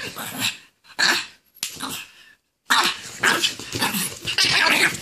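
Pug barking in play in a string of short, loud bursts, with brief pauses in the first couple of seconds and barking nearly nonstop from about three seconds in.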